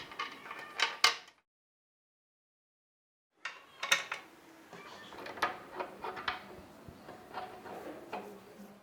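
Sharp, irregular mechanical clicks and clacks from a Facit typewriter's mechanism being worked by hand, in two runs separated by about two seconds of silence.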